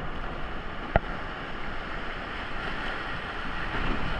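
Steady rush of whitewater on creek rapids, with wind buffeting the microphone, swelling a little near the end. A single sharp knock about a second in.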